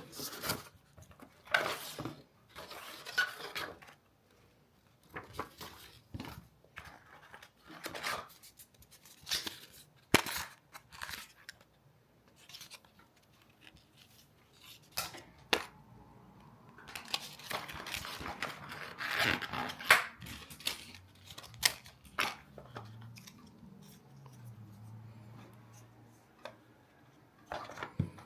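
Hands handling camera rig hardware: a run of irregular clicks, taps and short scrapes of small metal and plastic parts being fitted and adjusted, busiest about two-thirds of the way through.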